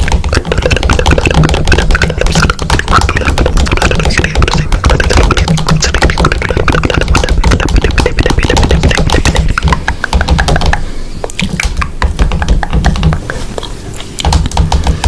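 Loud music with a fast, dense beat over a bass line.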